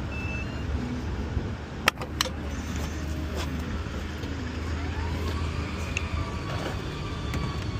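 Two sharp clicks about two seconds in as the CCS charging connector is pulled out of its holster on a DC fast-charging station, over a steady low hum.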